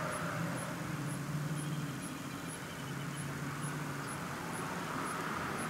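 Steady low mechanical hum, with faint high ticks repeating about twice a second.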